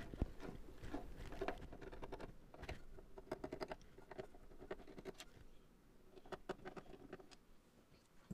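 Screwdriver turning out small machine screws from the reed-switch bank of a Yamaha CS-80 keybed: a run of faint, irregular scratchy clicks and ticks that thin out over the last few seconds.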